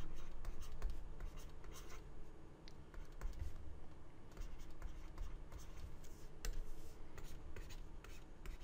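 Stylus writing on a tablet: a run of short scratches and taps as numbers are handwritten, with brief pauses between strokes.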